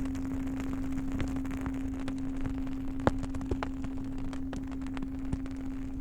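A low-pitched singing bowl holding one steady hum over a crackling wood fire, with scattered sharp pops from the fire, the loudest about three seconds in.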